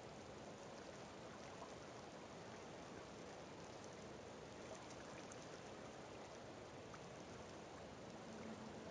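Faint, steady outdoor ambience: an even hiss with a few faint ticks.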